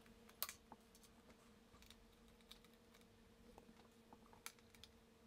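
Near silence with faint, scattered small clicks and taps from hands working the screws and metal frame around a laptop's LCD panel, two of them sharper, over a faint steady hum.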